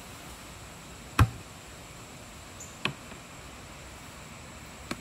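Three short knocks, the first about a second in the loudest and deepest: a plastic bucket stool with a plywood seat being set down on the ground and sat on.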